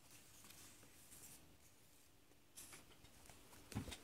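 Faint rustling of a paper-and-cardboard model hand being handled on a wooden desk, with a soft knock a little before the end.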